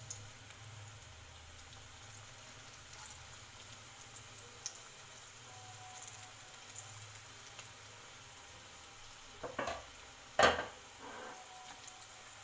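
Pakora batter deep-frying in hot oil in a wok: a steady sizzle throughout, with a few short louder noises near the end, the loudest about ten seconds in.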